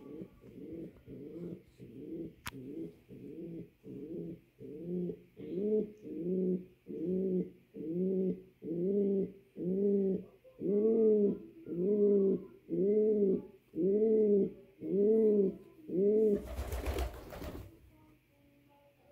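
A male pouter pigeon cooing over and over, nearly two coos a second, each rising and falling in pitch and growing louder as he goes: a cock calling for his hen to mate. A brief loud rushing noise cuts in near the end.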